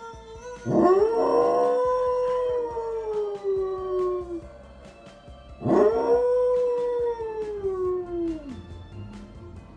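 A Samoyed howling: two long howls, each rising quickly in pitch and then slowly falling, about five seconds apart, with music underneath.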